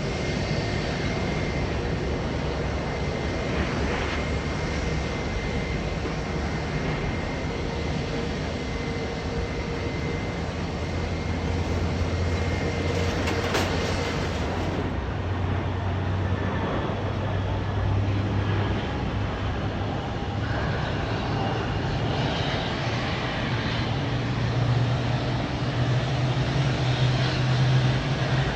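Jet airliner engines running with a steady drone and a faint high whine. A low hum rises in pitch in the second half.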